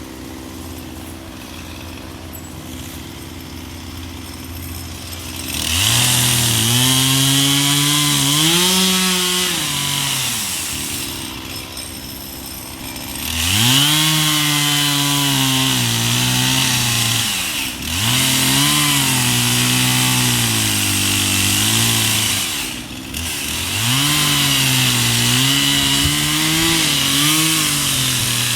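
Two-stroke chainsaw idling, then revving and cutting into wood in several long runs. The engine pitch sags and recovers as the chain bites, and it drops back briefly between cuts.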